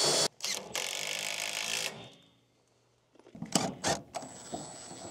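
Power drill whirring, stopping just after the start, then running again for about a second before winding down. A few light knocks and clicks follow near the end.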